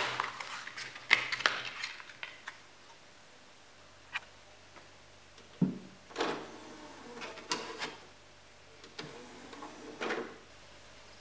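Plastic handling clicks as a disc is taken from a black DVD case during the first couple of seconds. After a short pause, a thump and further clicks and handling sounds around a DVD player as its buttons are pressed and it is loaded, ending shortly before the close.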